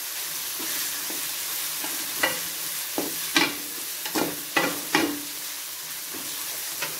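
Chopped onions, curry leaves and green chillies sizzling in hot oil in an aluminium kadai, stirred with a perforated steel ladle. The ladle knocks and scrapes against the pan about six times between two and five seconds in, each strike leaving a short metallic ring over the steady sizzle.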